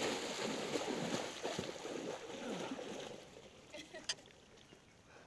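Water splashing and churning as a person runs into a lake and wades out, loudest for the first three seconds, then quieter. A single sharp click about four seconds in.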